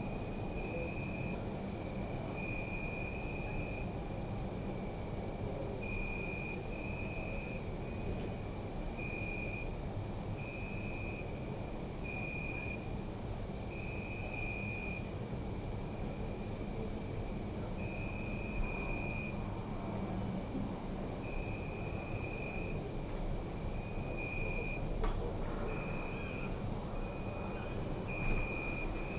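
Crickets chirping at night: one very high, near-continuous trill broken by short gaps, and another lower-pitched cricket chirping in short repeated phrases, over a steady low background rumble.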